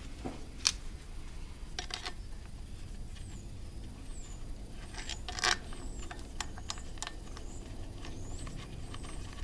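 Scattered light metallic clicks and taps of hand tools working at the stump grinder's clutch as a tight part is worked around on its shaft, the loudest about five and a half seconds in. Faint short high chirps sound in the background.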